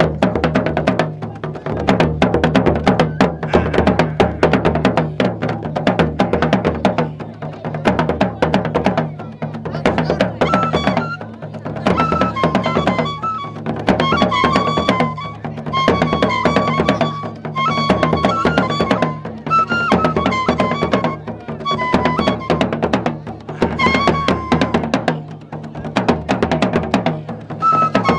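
Traditional Gurunsi hide-headed drums beaten with curved sticks in a fast, dense rhythm. From about ten seconds in, a high melodic line joins over them, repeating in short phrases.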